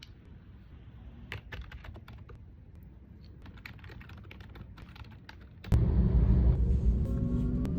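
Typing on a computer keyboard: quick, irregular key clicks over a low hum. Near the end a much louder low rumble cuts in suddenly and takes over.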